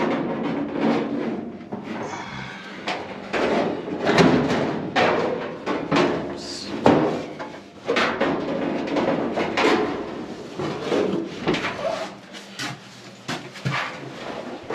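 A clothes dryer's metal drum being fitted onto its support wheels: repeated clunks, knocks and scraping of sheet metal throughout.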